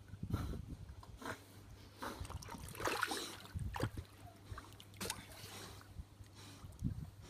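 Pool water splashing and sloshing in irregular swishes as a cattle dog paddles close by, loudest about three seconds in.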